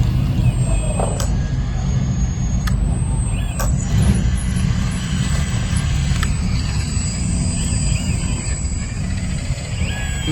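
Steady low machine rumble, like a heavy engine running, with a few sharp clicks or knocks and faint high chirps over it.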